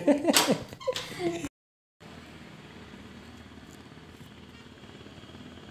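Brief talk, then after an abrupt cut a steady low engine hum.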